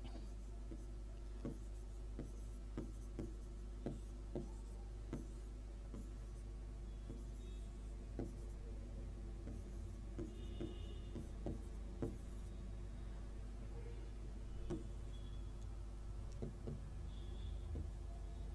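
Stylus writing on an interactive display screen: irregular taps and short scratches as equations are written by hand, over a steady low hum.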